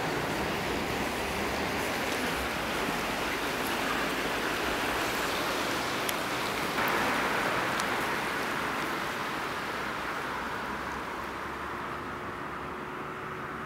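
A steady rushing noise with a few faint clicks, stepping up slightly about seven seconds in and fading a little near the end.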